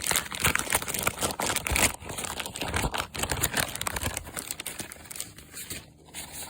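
Gift-wrapping paper being torn and crumpled as a present is unwrapped, a dense crackling rustle that thins out after about five seconds.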